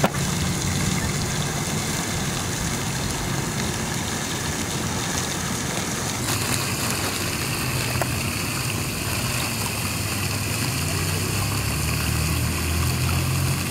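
Steady rushing noise with a low hum joining in about eleven seconds in; a single sharp click right at the start.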